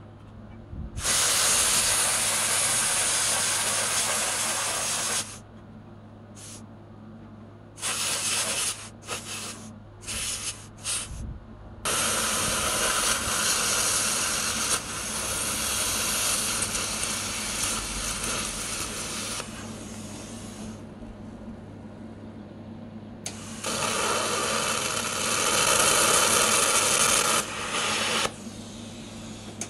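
Air plasma cutter firing in hissing spells of a few seconds each, with a run of short bursts in between, over a steady low hum. The air compressor feeding it has been left switched off.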